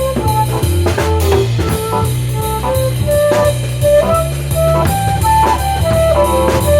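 Instrumental music with no vocals: a drum kit, a strong bass line and a lead melody of held notes, in a jazzy groove.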